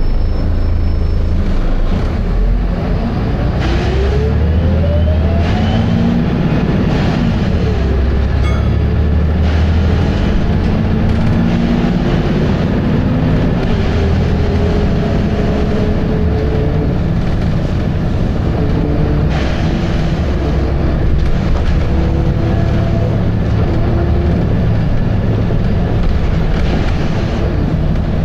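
Volvo B7RLE bus's six-cylinder diesel engine and drivetrain working hard under way, a low rumble with pitches that climb and drop as it pulls through the gears, including a rising whine a few seconds in.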